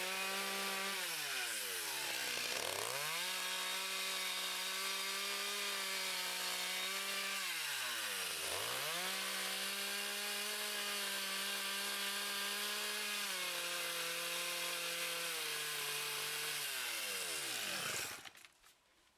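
A two-stroke chainsaw running at high revs, cutting wood. Twice its pitch drops sharply and climbs straight back; near the end the engine note falls away and stops.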